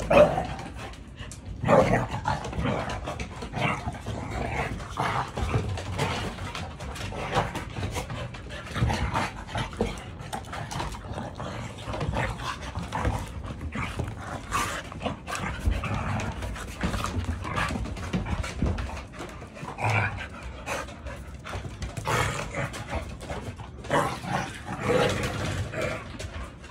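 Two dogs wrestling and play-fighting, with irregular bursts of barking and growling. The outbursts are loudest about two seconds in and again between about twenty and twenty-five seconds in.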